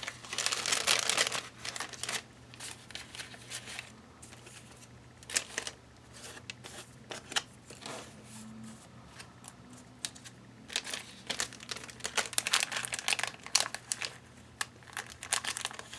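Crinkly craft packaging being handled, crackling in irregular bursts that are loudest in the first second or so and again over the last few seconds.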